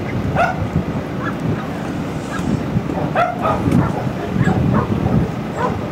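A dog barking a few short, sharp times over steady outdoor background noise.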